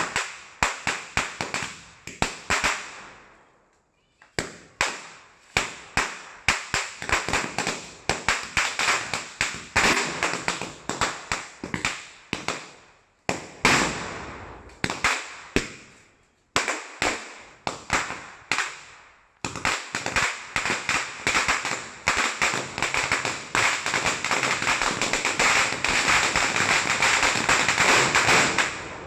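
A long string of handmade firecrackers going off in rapid succession, many sharp bangs a second. There are a few short pauses, then a dense, nearly continuous crackle through the last nine seconds.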